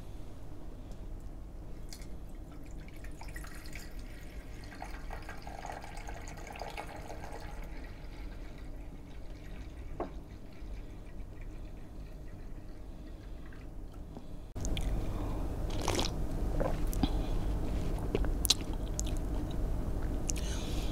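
Date palm sap poured from a plastic bottle into an enamel mug, a trickling pour lasting a few seconds. Later the room sound jumps up and a few short clicks and sips follow as the sap is drunk.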